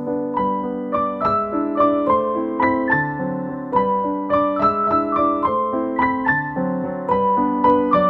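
Background music: a keyboard melody of evenly struck notes over held chords.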